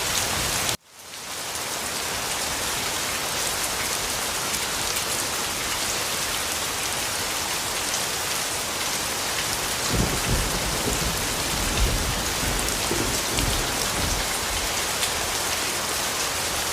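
Steady heavy rain falling on a surface. About a second in it cuts out abruptly and fades back in, and from about ten seconds in low rumbles swell under it.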